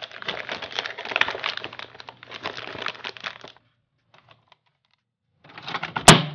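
Hands rummaging among plastic coffee pods and their packaging, a dense rattling and crinkling that lasts about three and a half seconds. Then a pod coffee maker's lid is brought down over a pod, ending in one sharp loud click near the end.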